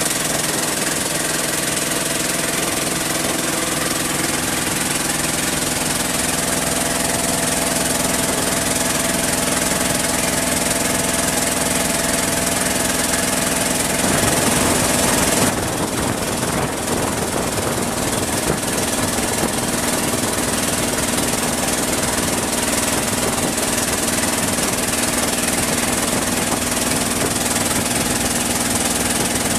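Boat engine of a Moken kabang houseboat running steadily, heard on board under the boat's roof. About fourteen seconds in the sound shifts to a noisier, hissier engine mix with one steady hum.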